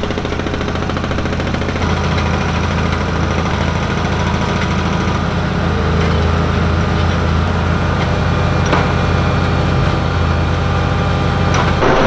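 Diesel engine of heavy construction machinery running steadily at a roadwork site, getting a little louder about two seconds in.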